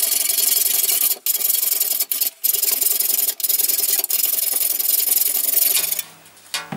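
The protruding end of a bolt being cut off flush with the face of a metal cowling: a steady, gritty cutting noise, broken by a few short breaks, that stops about six seconds in.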